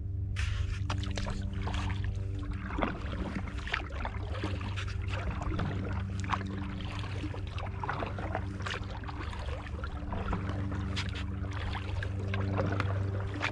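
Water splashing and lapping around a kayak as it is paddled, in irregular small splashes, over a steady low hum.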